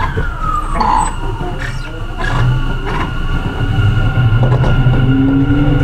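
Onboard running sound of a Tokyu 9020 series electric train: the whine of its Mitsubishi full-SiC VVVF inverter and traction motors over wheel-on-rail rumble, with a few sharp clicks. A whine tone glides down in pitch in the first second or so, and rising tones come in near the end.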